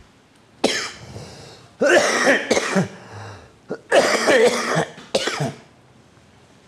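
A man coughing in a series of about five short, loud bouts, one after another for about five seconds, as he smokes a cigarette.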